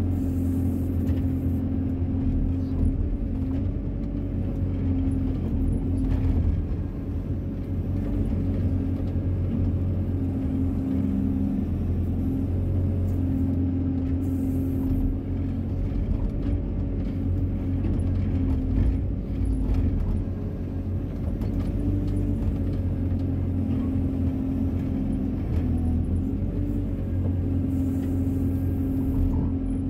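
Wheeled excavator's diesel engine running steadily under load, heard from the operator's cab, its tone wavering a little as the boom and bucket dig and lift soil.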